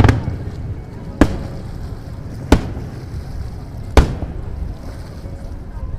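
Aerial firework shells bursting: a cluster of bangs at the start, then three single sharp bangs about a second and a half apart.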